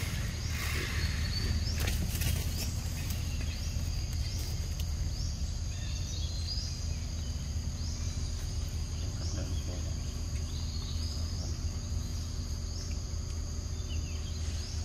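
Outdoor ambience: a steady high-pitched insect drone, with a short rising chirp repeating roughly once a second, over a steady low rumble. A few faint clicks about two seconds in.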